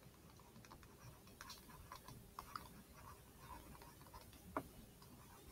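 Faint, irregular taps and clicks of a stylus writing on a tablet screen, with one slightly louder tap near the end; otherwise near silence.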